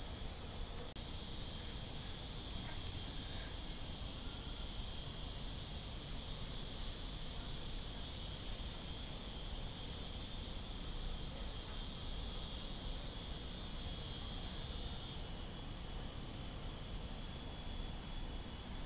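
Cicadas shrilling: a steady high buzz under a higher layer that pulses about twice a second. The higher layer runs on unbroken for several seconds in the middle, then pulses again near the end.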